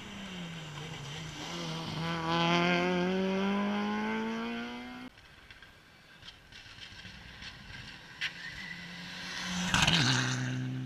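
A rally car's engine pulls hard, its note climbing steadily until it cuts off abruptly about five seconds in. After a quieter stretch with a few clicks, another rally car rushes past near the end, its engine note dropping sharply as it goes by.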